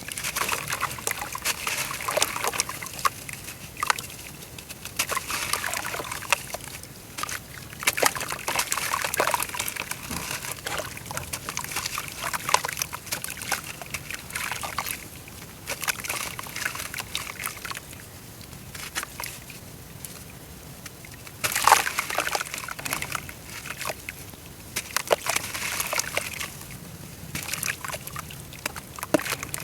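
Dry brown dirt crumbling apart in water: sloshing with clusters of fine crackling and fizzing clicks, the loudest cluster about two-thirds of the way through.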